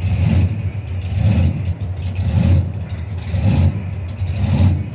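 Drag racing car's engine running, a heavy low rumble that swells and fades about once a second.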